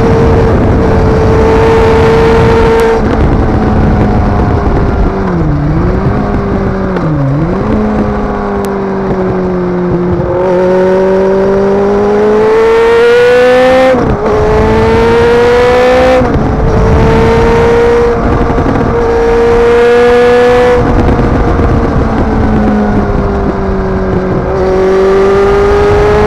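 Kawasaki ZX-9R's inline-four engine pulling on the road under a steady rush of wind noise. The revs dip twice briefly early on, then climb from about ten seconds in, with two sharp drops at gear changes. After that the engine runs steady, and it rises again near the end.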